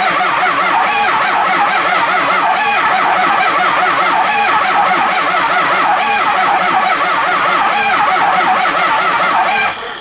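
Ford 6.0 Powerstroke V8 diesel cranking over slowly on its starter without starting, the cranking speed rising and falling as it fires on some cylinders and not others ("hit, spin, hit"), which the mechanic takes for a dead cylinder. The cranking stops just before the end.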